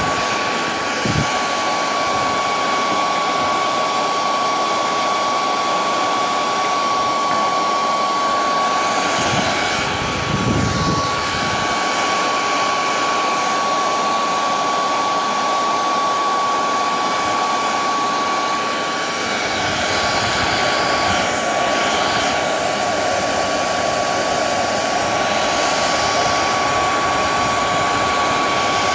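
Hair dryer on its hottest, fastest setting blowing steadily, a rushing airflow with a constant high whine from its motor, dipping briefly twice. It is heating the solder joints of a car stereo faceplate's circuit board to reflow aged, cracked solder.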